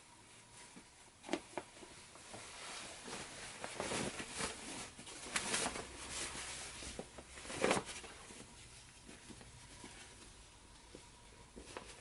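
Fabric rustling and swishing in irregular bursts as a lined jacket is pulled through to turn it right side out; the loudest swishes come a little past the middle.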